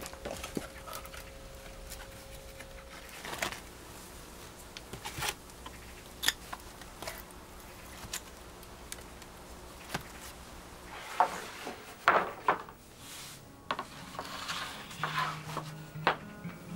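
Weathered wooden boards of an old compost box being handled with gloved hands: scattered light knocks and clicks, with a busier stretch of wood rubbing and knocking about two-thirds of the way through. Soft music comes in near the end.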